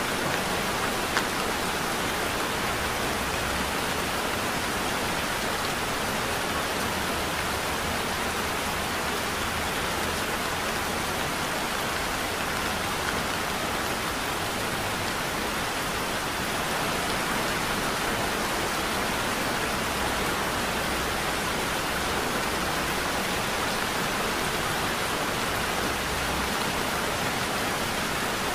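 Heavy rain falling steadily as an even hiss of drops, with one small tick about a second in.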